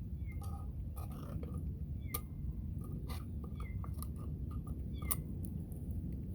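Kitten mewing: four short, high calls, each falling in pitch, about a second and a half apart. Scattered clicks and a steady low rumble lie under them.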